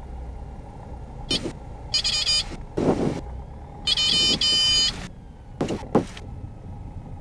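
Piper PA-28's single engine running at low power as the aircraft rolls out on the runway after landing, a steady drone heard in the cabin. About two seconds in and again near four seconds come short blocks of high, pulsing electronic tone, and there are a few brief sharp noises around them.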